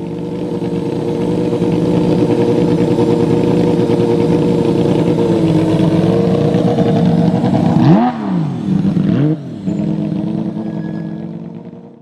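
Porsche 911 GT3 rally car's flat-six engine running hard at a steady high pitch, then two quick rev rises and falls about a second apart, like throttle blips on downshifts, before settling back to a steady note that cuts off suddenly.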